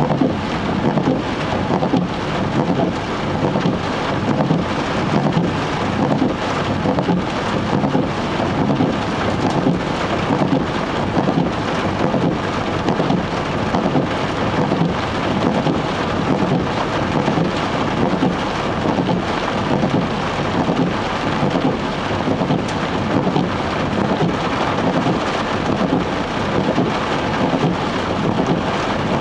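Heavy rain beating on a moving car, heard from inside the cabin, together with the tyres running through water on the road surface: a steady, dense noise with no let-up.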